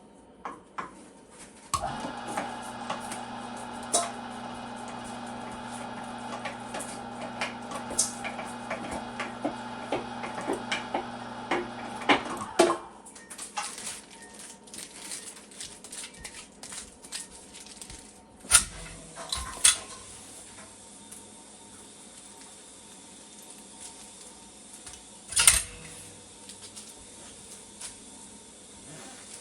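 Cabela's Carnivore electric meat grinder running with a steady motor hum and light clicking for about ten seconds, then switched off. Afterwards come scattered clanks and knocks of metal pans and utensils, two of them louder.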